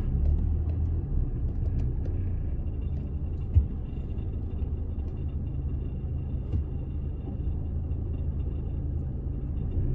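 Steady low rumble of vehicle engines in slow traffic, heard from inside a car's cabin while a bus crosses close in front. A single short knock about three and a half seconds in.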